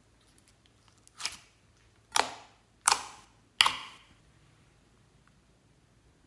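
White glossy slime dropping in folds into a glass bowl: four short plops about a second apart, each starting sharply and fading quickly.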